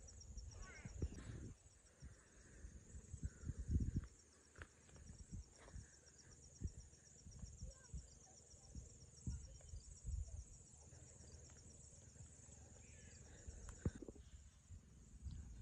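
Insects chirping: a faint, steady, high trill with a fast even pulse. Scattered low thumps and rumbles sit underneath, loudest about four seconds in.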